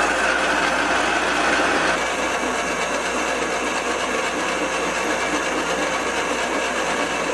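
Dump trailer's electric winch motor running steadily with its gears engaged, paying its cable out slowly under power because the clutch will not go into freewheel.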